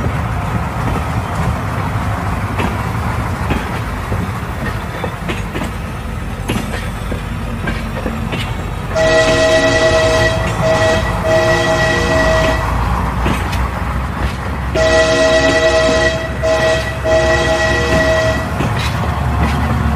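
Train running with a steady rumble and rail clatter. About 9 seconds in, a locomotive horn sounds three blasts (a longer one, a brief one, then a longer one), and the same three-blast pattern comes again about 15 seconds in. On Indian Railways this three-horn call tells the guard that the driver has lost control and must pull the air brake.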